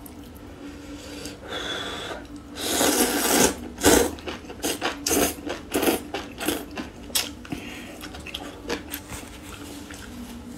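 Rice noodles slurped into the mouth: one long noisy slurp about three seconds in, then a quick run of short sucking slurps over the next few seconds, with softer mouth sounds after.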